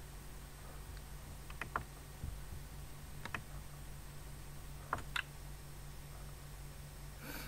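Computer mouse button clicking a few times, some clicks in quick press-and-release pairs, over a low steady hum.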